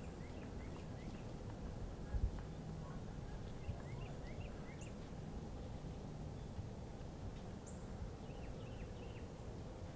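Quiet outdoor ambience: a steady low rumble with scattered short, high, rising bird chirps in small clusters near the start, around the middle and near the end, and a soft low thump about two seconds in.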